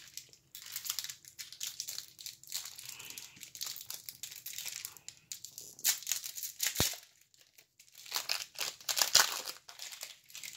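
Foil trading-card pack crinkling as hands handle it and tear it open, in irregular crackles that grow loudest about six seconds in and again near nine seconds, with a couple of short sharp clicks.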